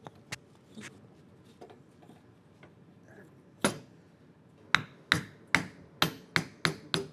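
Hammer tapping a part in a frame-building jig to nudge it down slightly. A few light taps come first, then one firm strike, then a quick run of about seven sharp blows near the end, some ringing briefly.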